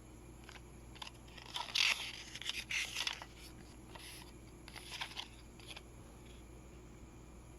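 Crinkling and rustling of CD packaging being handled, in a cluster of crackles about two to three seconds in and a second, softer cluster around five seconds.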